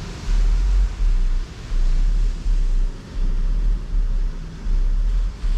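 Wind buffeting the camera microphone, a low rumble that swells and drops in gusts about once a second.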